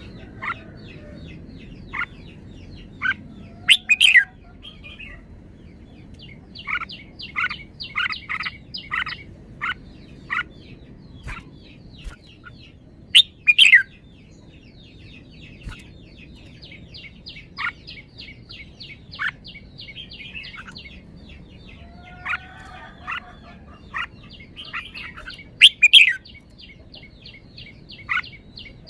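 Red-whiskered bulbul singing: three loud, short whistled phrases about ten seconds apart, with scattered single sharp notes between them. A fast, even run of high chattering notes carries on underneath for much of the time.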